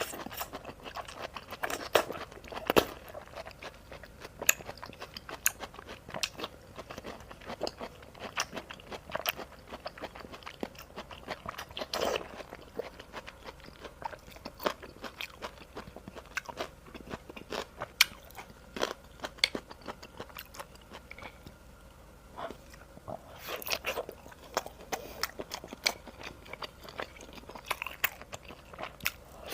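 Close-miked eating of vegetable and fish ball soup: chewing and biting, heard as many short, irregular clicks and mouth noises throughout.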